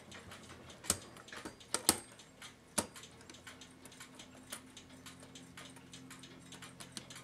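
Small metallic clicks and taps of brass clock-movement parts being handled as the plate is worked down over the wheel pivots, with a few sharper clicks about one, two and three seconds in.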